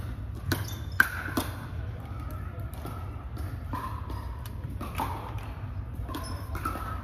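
Pickleball paddles hitting plastic balls and balls bouncing on a hardwood gym floor: scattered sharp pops that echo through the hall, the loudest about a second in, over a steady low hum and faint distant voices.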